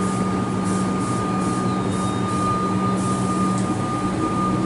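Comeng electric suburban train pulling away from the platform, with a steady electric hum and a constant higher whine over its rumble.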